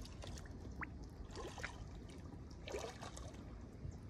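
Faint trickling and lapping of shallow creek water around a smallmouth bass held by hand for release, with a few brief light splashes.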